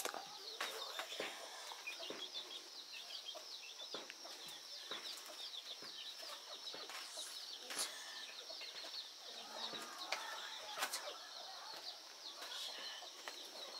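Faint chickens in the background, a steady stream of quick, high, falling chirps, with a few soft knocks scattered through.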